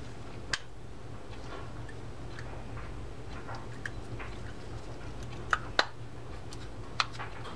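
Sharp small clicks and taps of a Shimano Trinidad 12A reel's aluminium side plate being fitted and aligned onto the frame by hand: one click about half a second in, then three louder ones close together near the end, with fainter ticks between. A low steady hum runs underneath.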